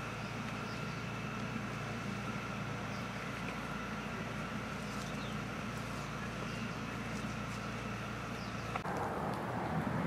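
Steady background rumble with a faint, steady high whine. It changes near the end to a different background with less low rumble.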